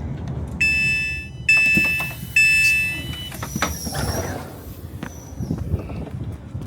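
Three electronic chime tones about a second apart, each dying away, on a railway train or platform. They are followed by a hiss with a brief high squeal and a few clicks.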